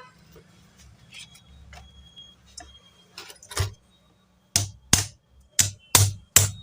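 Sharp metallic taps and knocks on the parts of a Kirloskar Tullu half-horsepower pump motor being dismantled. A few faint clicks come first, then from about halfway a run of loud, quick strikes, two or three a second.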